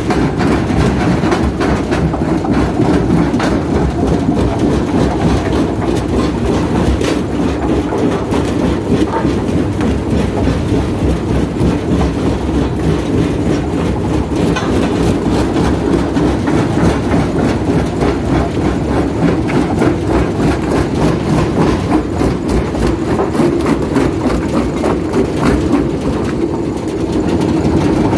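Stone-crushing plant running: the vibrating grizzly feeder shakes granite blocks and mud over its steel pan and grizzly bars toward the crusher. It makes a steady, loud metallic clatter of rock knocking on steel over a heavy machine rumble.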